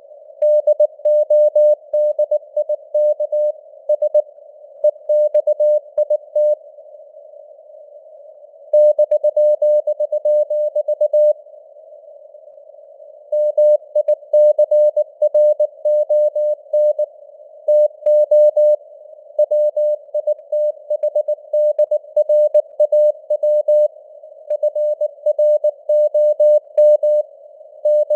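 Morse code (CW) sent at 19 words per minute as a single steady tone keyed on and off in rapid dots and dashes. It sounds like a receiver sidetone over a narrow hiss of simulated radio band noise, and breaks off twice for about two seconds between words.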